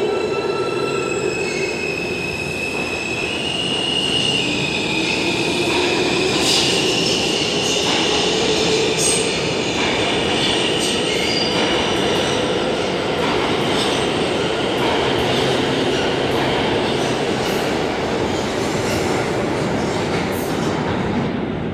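New York City subway train pulling out of an underground station. A whine rises in steps over the first few seconds as it gathers speed, then wheels squeal on the rails under steady running noise.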